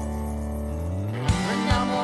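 Background music: a held chord, then about a second in a new track comes in with a steady drum beat, about two and a half beats a second, and a wavering melody over it.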